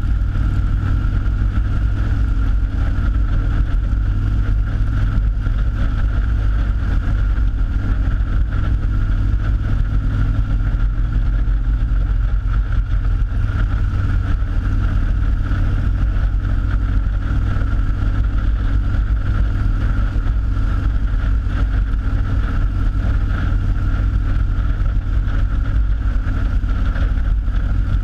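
Cruiser motorcycle running steadily at road speed, its engine drone mixed with wind rush on the bike-mounted camera.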